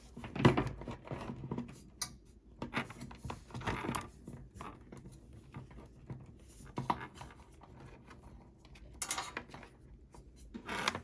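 Handling noise as cables are untied and moved: rubbing and rustling with scattered light clicks and knocks, the sharpest knock about half a second in.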